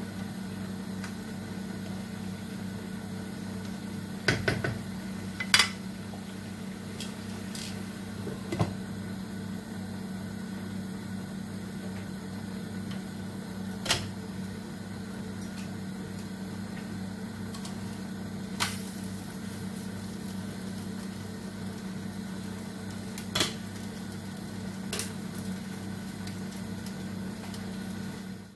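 Steady low kitchen hum, with occasional clinks and clatters of a spatula against a frying pan and of a pan lid being handled, the loudest two about four to six seconds in.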